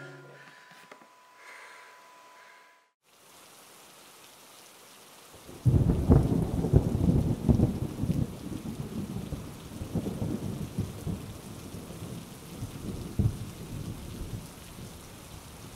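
The music fades out, and after a brief moment of near silence a steady hiss begins. About five and a half seconds in, a loud low rumble starts suddenly and slowly dies away over the hiss.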